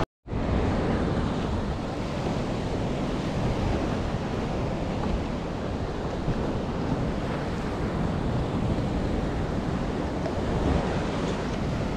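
Steady sea noise of waves and surf with wind buffeting the microphone, starting after a brief dropout at the start.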